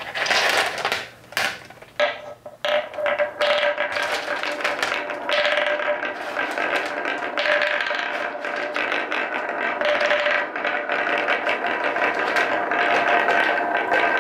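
Balls rolling and clattering through the winding grooves of a plywood marble-run track: a continuous rattling rumble full of small knocks as they hit the channel walls and each other. It starts suddenly with a burst of clatter as the balls are let go.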